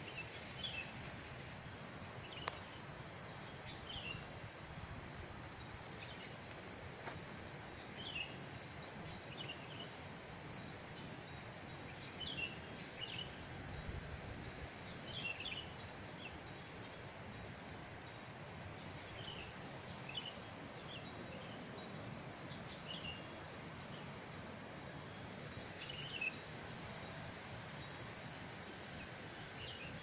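Steady high-pitched drone of insects, with short chirps breaking in every few seconds.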